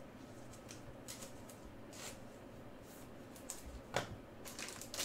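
Faint rustling and light taps of trading cards being handled and set down on a table. A sharper click comes about four seconds in, and a burst of crinkling starts near the end.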